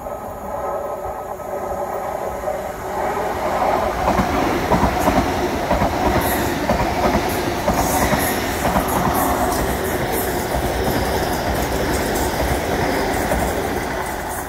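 Great Western Railway Class 802 IET train, with a Class 800 unit on the rear, passing through at speed. Steady tones rise as it approaches, then from about three seconds in comes loud rushing wheel-and-rail noise full of rapid clicks.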